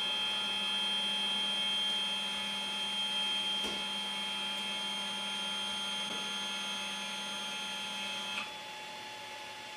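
Creality Ender 5 Plus Z-axis stepper motors whining steadily as they drive the print bed down on its lead screws, stopping abruptly about eight and a half seconds in. A fainter steady hum remains after.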